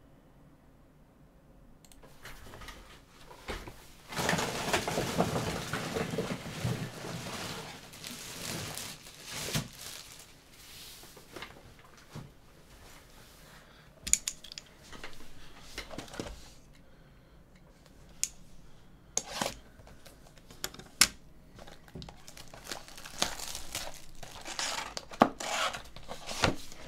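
Plastic shrink-wrap crinkling and tearing as a Panini Select trading-card box is unwrapped by hand, starting about two seconds in and loudest for several seconds after that. Sharp clicks and snaps of the cardboard box follow as it is opened.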